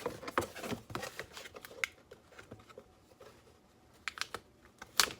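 A cardboard product box being handled by hand: scattered light taps, rustles and clicks, with one sharp knock near the end.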